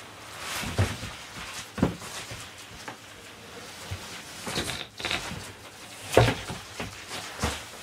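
Cardboard shipping boxes being handled: flaps scraping and rustling, with several dull knocks, the loudest about six seconds in.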